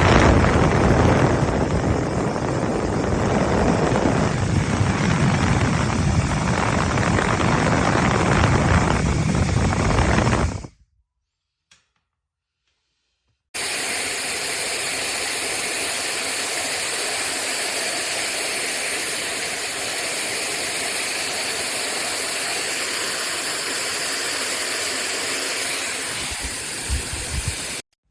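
Handheld hair dryer brush running, a steady rush of blowing air. It cuts out about eleven seconds in and is silent for about three seconds, then runs again more evenly until just before the end.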